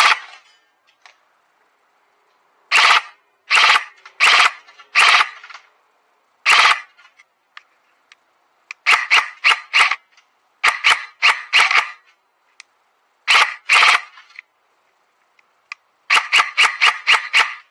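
Raven CAOS airsoft gun firing: a few single semi-auto shots about a second apart, then several short full-auto bursts of four or five rapid shots each.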